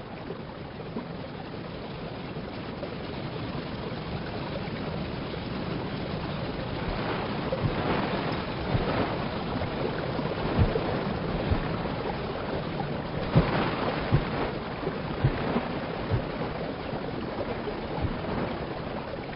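Rushing river water, growing gradually louder, with irregular splashes from about the middle on as horses wade through the current.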